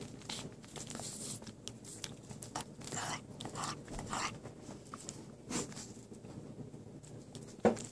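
Jack Russell terrier sucking and licking at a Great Dane's armpit fur as if nursing: irregular wet smacking and slurping clicks. A brief louder sound cuts in near the end.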